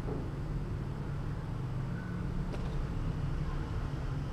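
Steady low hum of room noise with no distinct events.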